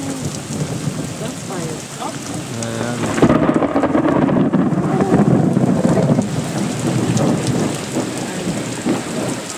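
Heavy rain falling on the sea, with a loud rumble of thunder that starts about three seconds in and dies away about three seconds later.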